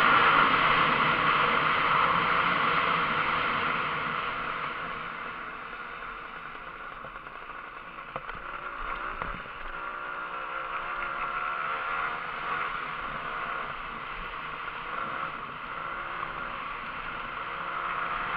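Kawasaki KMX 125's two-stroke single-cylinder engine running under way across rough ground, with a steady rushing noise over it. It is loudest at first, eases off around six seconds in, then picks up again with a wavering engine note.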